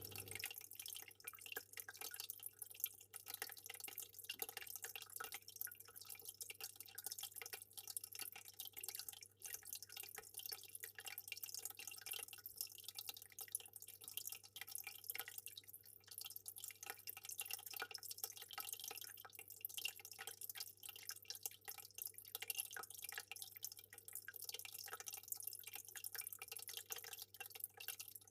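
Fish tank water trickling and bubbling: a continuous fizz of small drips and pops over a steady low hum.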